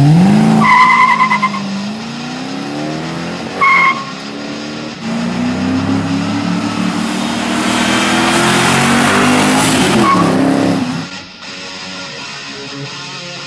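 2005 Pontiac GTO's 6.0 L LS2 V8 running through a Pypes Pype Bomb stainless axle-back exhaust, loud as the car pulls away, with two short tire squeals in the first four seconds. The engine then climbs steadily in pitch as the car accelerates, until guitar music takes over about 11 seconds in.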